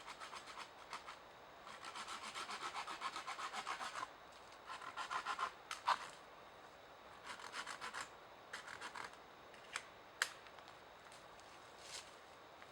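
Hand saw cutting wood in short bursts of quick rasping strokes, about six a second, with a few sharp single knocks or snaps in between.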